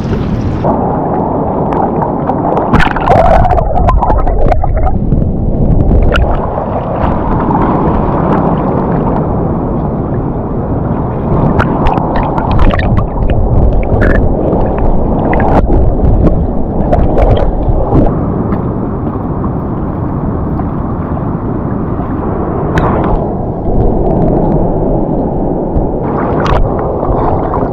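Loud, muffled sloshing and gurgling of sea water with little treble, dotted with scattered clicks and knocks. The sound turns suddenly dull less than a second in.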